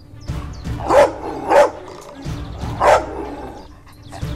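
Rottweiler barking three times, short sharp barks about a second in, half a second later, and again near three seconds: frustrated reactive barking at another dog.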